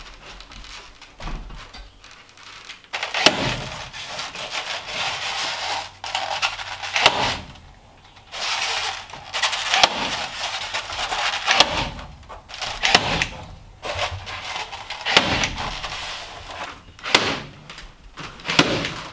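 A cordless staple gun fires about half a dozen sharp shots a few seconds apart, fastening foam rafter vent baffles to the roof rafters. Between shots comes rustling and scraping as the baffle is handled and pressed up into place.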